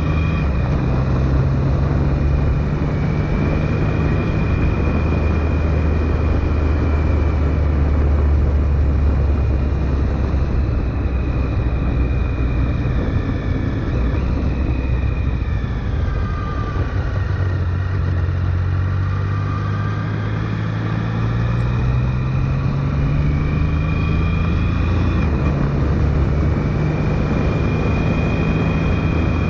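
Triumph Sprint GT's three-cylinder engine running under way, with wind rushing past. The engine note falls in pitch about halfway through as the bike slows, then climbs again as it picks up speed.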